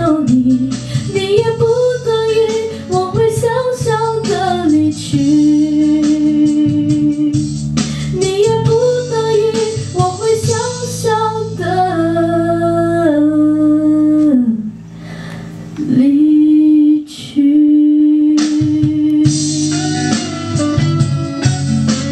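A young woman singing a slow Mandarin pop ballad into a handheld microphone over a backing track with guitar, ending on long held notes. In the last few seconds the voice stops and the guitar accompaniment plays on.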